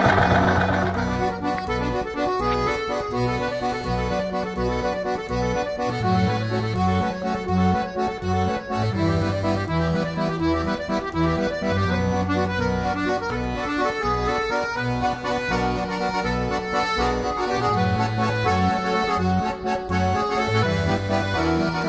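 Instrumental background music: a traditional-style tune over a bass line that steps between a few notes.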